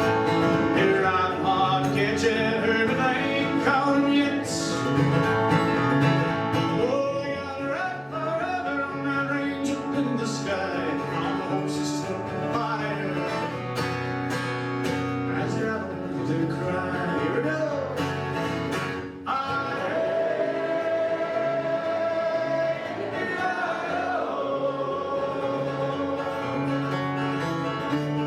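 A western song performed live: a singer's voice over acoustic guitar.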